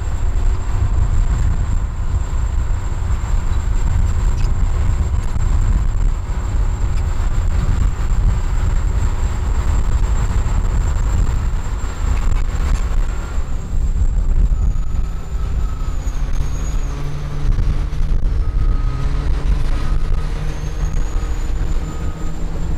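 Caterpillar D10T crawler bulldozer's diesel engine running hard under load as the blade pushes spoil, a deep continuous rumble with a thin high whine over it. The engine note shifts up and down in steps in the second half as the load changes.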